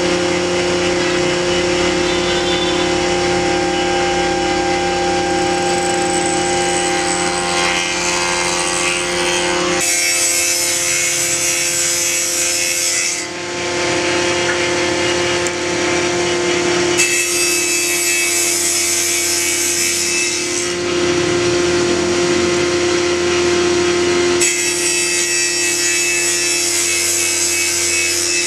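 Table-mounted circular saw running steadily with a constant hum, cutting notches in small strips of wood. Three times, for a few seconds each (about a third of the way in, past the middle and near the end), the hiss of the blade in the wood grows much louder.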